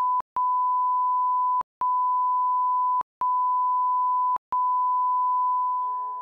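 1 kHz reference test tone played with SMPTE colour bars: a steady, loud pure beep broken by four brief gaps about a second and a half apart, fading out near the end.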